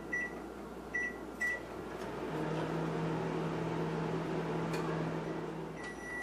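Microwave oven keypad beeping three times as it is set, then the microwave running with a steady hum for a few seconds. A longer beep comes near the end.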